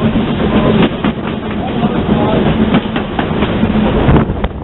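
0-8-0 tank steam locomotive running along the line, heard from its cab: a steady loud rumble with the clatter of wheels and running gear on the rails, easing a little near the end.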